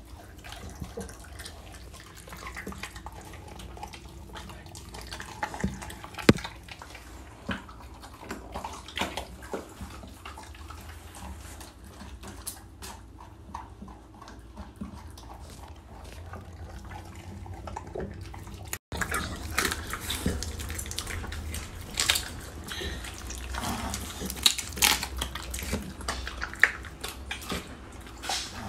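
American bully dog eating raw chicken: wet chewing, smacking and crunching in irregular bites, louder and busier in the second half.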